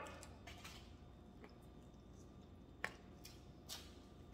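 Quiet eating sounds: a few soft, short clicks of a fork and mouth noises from chewing over low room tone.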